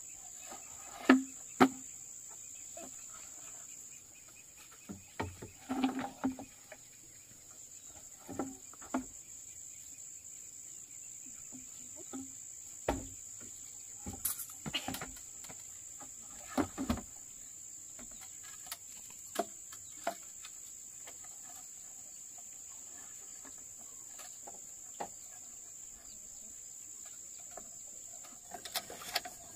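A steady high-pitched insect drone, with scattered sharp knocks and clatters of work over it. The two loudest knocks come about a second in.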